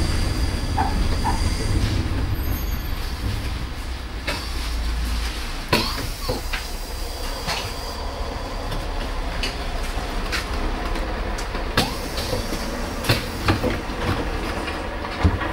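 Inside a GT4 articulated tram under way: a steady low rumble of wheels on rails, with a faint high wheel squeal in the first two seconds and irregular sharp clacks and knocks from the track later on.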